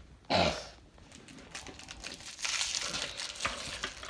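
Plastic wrapping crinkling and rustling as small toy packets are handled and opened, getting busier in the second half. A brief louder burst comes about a third of a second in.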